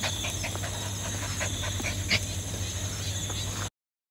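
Small white dog panting close by, with many small clicks over a steady background; it cuts off suddenly near the end.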